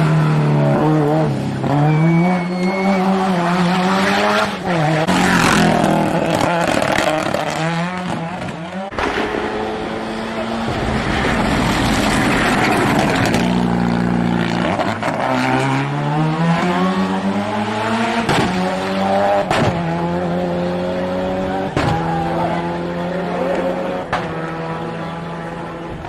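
Hillclimb race cars at full throttle, engines revving hard and climbing in pitch, then dropping sharply at each upshift, several times over as cars pass one after another.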